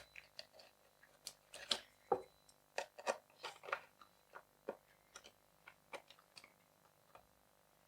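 Faint, irregular small clicks and taps of hands handling the plastic parts of an opened laptop, a couple of sharper knocks about two and three seconds in.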